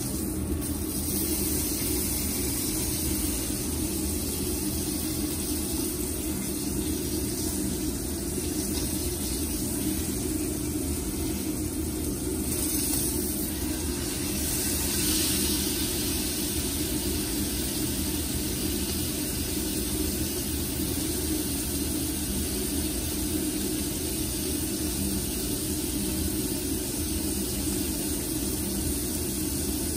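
Steak sizzling steadily in a hot cast-iron skillet on a gas stove, with a steady low rumble underneath; the sizzle swells briefly about halfway through as the steak is moved with tongs.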